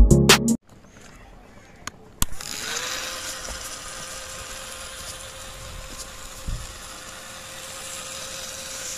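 A small DC motor in a homemade toy tractor switches on with a click about two seconds in, spins up briefly and then runs with a steady whine. There is a faint bump about six and a half seconds in.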